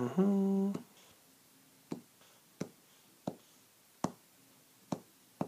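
A man's short hummed "hmm", then six sharp clicks spaced about two-thirds of a second apart.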